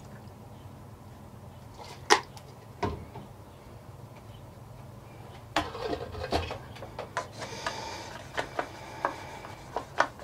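Small clicks and light knocks of a paint dropper bottle and an airbrush being handled on a workbench: a sharp click about 2 s in, another near 3 s, then a run of clicks and rustling from about halfway, over a steady low hum.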